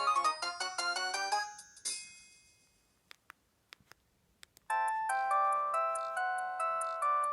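Preloaded ringtones playing on an LG GM205 mobile phone. A quick melody of electronic notes ends about two seconds in with a last note fading out. A few faint clicks follow in near silence, then a new ringtone starts past the middle: bright electronic notes in a steady rhythm.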